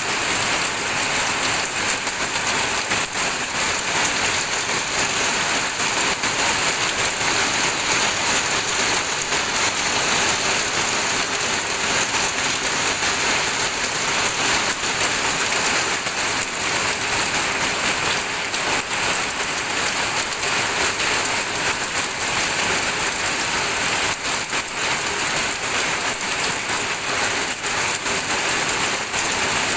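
Steady rain falling, an even hiss of many drops striking a surface without let-up.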